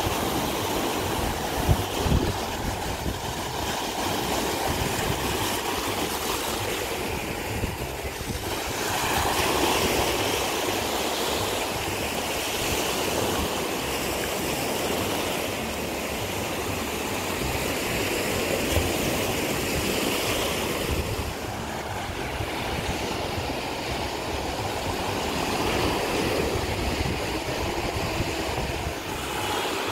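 Small waves breaking and washing up a sandy beach: a steady hiss of surf that swells and fades every few seconds, with wind on the microphone.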